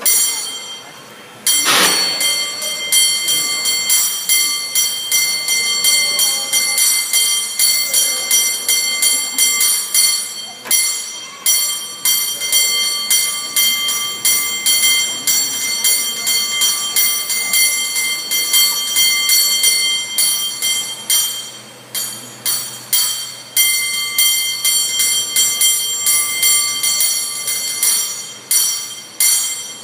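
Cable car bell rung in a fast rhythmic routine: a single strike, a short pause, then a long run of quick, patterned strikes with ringing overtones, broken by a few brief pauses.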